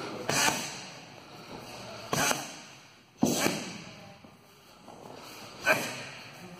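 Strikes smacking Muay Thai pads: four sharp hits at uneven intervals, each fading out quickly.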